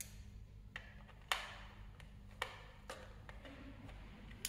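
A few sharp clicks and taps from a small screwdriver working a screw in a plastic toy remote control, the loudest about a second in, over a steady low hum.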